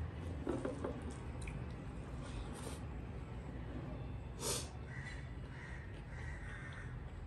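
Close-up eating sounds of someone eating rice and curry by hand from a metal plate: chewing and mouth noises, with a louder short breathy sound about four and a half seconds in, over a steady low hum.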